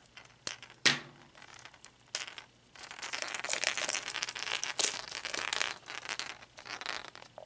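Clear plastic wrap crinkling and crackling as it is peeled off a plastic surprise egg, starting about three seconds in and lasting a few seconds. Two sharp clicks come in the first second.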